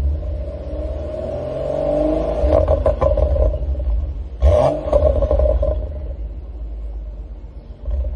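Exhaust of a BMW 535i's N55 turbocharged straight-six through an Eisenmann muffler: the revs rise and fall back, with pops and crackles on the overrun from a Stage 2 tune's burble map. A cluster of crackles comes about three seconds in and the loudest crack about four and a half seconds in, then the exhaust fades off.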